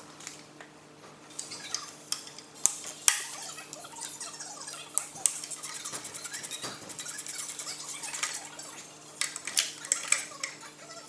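Metal hand tools clinking and clicking against engine parts while the turbocharger is unbolted from a 3.0 V6 TDI engine, with short runs of fast, even ticking. A steady low hum runs underneath.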